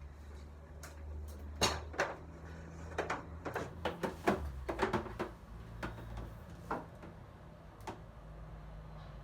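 A run of sharp knocks and clicks from objects being handled and set down, bunched together for a few seconds and then thinning out, over a steady low hum.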